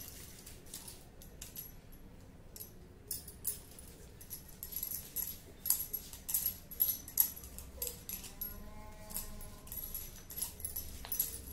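Bangles on the wrists of hands massaging a baby's oiled skin, clinking and jingling in short irregular bursts. A brief whimper from the baby about eight seconds in.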